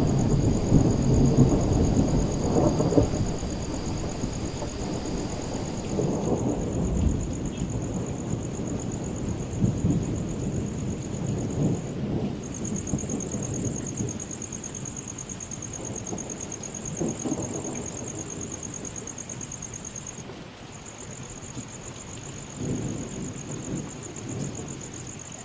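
Thunder rumbling in repeated rolls over steady rain, loudest in the first few seconds and softer later on. A thin, high, pulsing tone runs behind it and breaks off twice.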